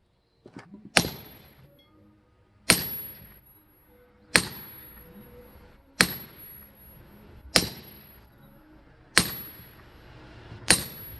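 Firewood being split with steady, repeated blows: seven sharp strikes about every second and a half, each with a brief metallic ring.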